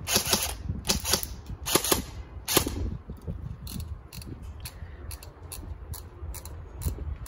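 Lancer Tactical M4 SD airsoft electric gun (AEG) firing single shots on semi-auto, each a sharp crack. Four loud shots come about a second apart in the first three seconds, then a run of fainter, quicker shots.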